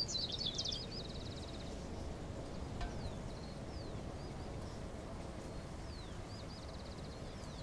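Small birds chirping and trilling over a steady low outdoor rumble. A quick burst of chirps comes right at the start, followed by a rapid trill, then scattered short downward-sliding calls and another trill near the end.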